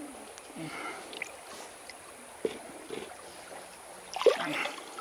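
Shallow river running over stones, with a few soft knocks and splashes as hands work a stone loose from the riverbed; the loudest comes about four seconds in.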